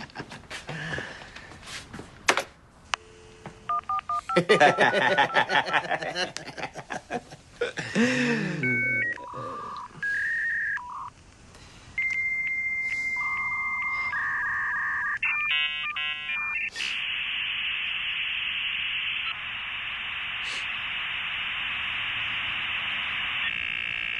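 Dial-up modem connecting: touch-tone dialing beeps about a third of the way in, a ringing tone, then squealing handshake chirps and a long steady hiss as the modems negotiate the line.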